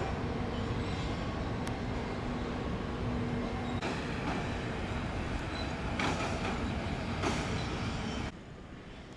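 Steady vehicle running noise, a rumble with a low hum, that cuts off suddenly near the end.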